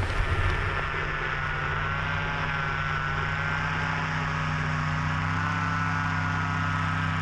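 A motor running steadily: an even hum with a faint wavering whine above it.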